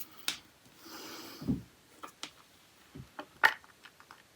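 Small tools and fingers handling a nail-art decoration on a desk: scattered light clicks and taps, a dull thud about one and a half seconds in, and a sharper click about three and a half seconds in.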